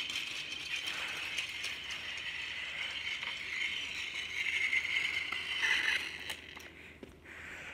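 Plarail Toby toy train's small battery-powered gear motor whirring with a light rattle as it runs along plastic track, fading away after about six seconds.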